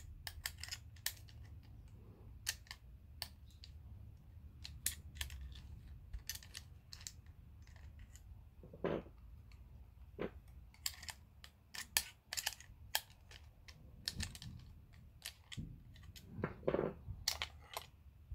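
Irregular small clicks and clinks of metal lock parts being handled: the plates and pieces of a disassembled door lock picked up and set down on a workbench.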